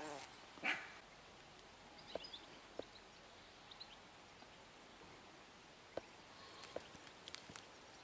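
A dog barks once, short and loud, less than a second in. Then comes faint outdoor quiet with a few small clicks and faint high chirps.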